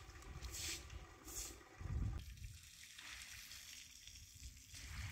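Straw broom swishing twice across wet stone tiles, then a steady hiss of water running from a garden hose and splashing on the tiles.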